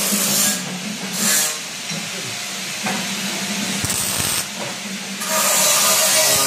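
Wire-feed (MIG) welder arc hissing and crackling while welding a stainless-steel washing-machine drum. A tune comes in about five seconds in.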